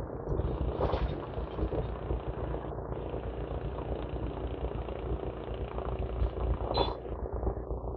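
Steady low rumble of heavy diesel engines, as of excavators working a demolition site, with brief louder noises about a second in and near the end.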